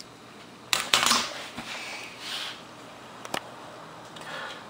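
Light handling noises: a few sharp clicks and some rustling, the loudest clicks about a second in, with a single sharp click a little past three seconds.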